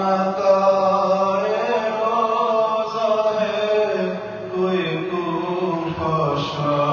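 A man's voice chanting an Urdu noha, a mourning lament, in long, drawn-out melodic lines, with no instruments.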